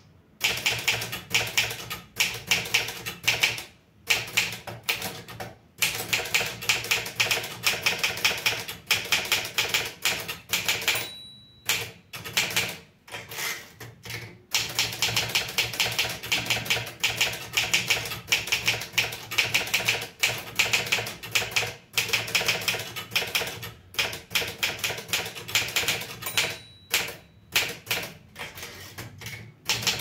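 Manual typing on an Olivetti Studio 46 portable typewriter: rapid typebar strikes against the platen, in long runs broken by short pauses between lines. A short ring of the margin bell is heard twice, about a third of the way in and near the end.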